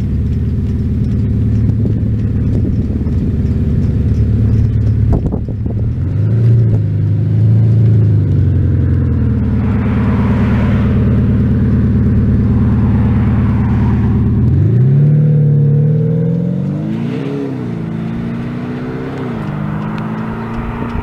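BMW 530d F10's three-litre straight-six diesel heard through an active sound booster with two sound actuators that give it a synthetic V8-style exhaust note. It idles, is blipped twice, then pulls away with the note rising, dropping back at gear changes and fading as the car drives off.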